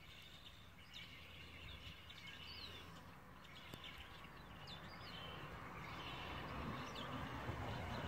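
Faint outdoor ambience with a few brief bird chirps. A low rumble slowly grows louder through the second half.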